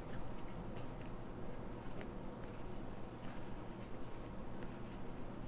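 Crochet hook working yarn through double crochet stitches, heard as faint, irregular soft clicks and rustles over a steady low hum.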